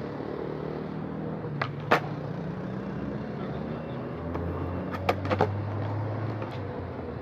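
Skateboards on concrete: wheels rolling with a steady low rumble, and sharp clacks of boards striking the ground, a loud one about two seconds in and three in quick succession around five seconds.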